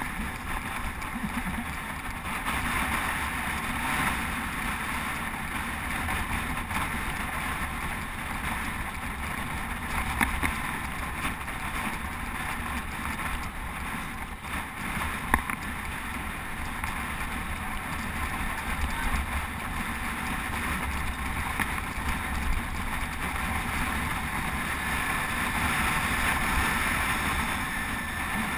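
Steady wind rushing over a GoPro camera's microphone on a moving road bicycle, with road and tyre hiss underneath. A single sharp click sounds about halfway through.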